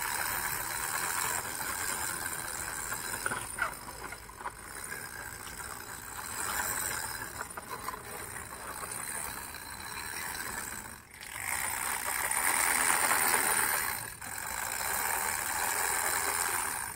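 Hard plastic wheels of a toy car rolling and scraping along rough concrete as it is pushed by hand. The rasp swells and fades several times as the car is pushed back and forth.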